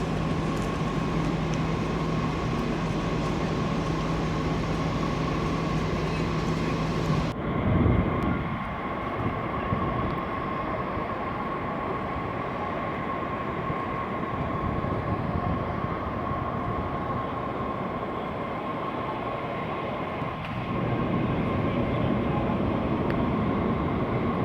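Steady city background rumble with a constant hum, its character changing abruptly at a cut about seven seconds in.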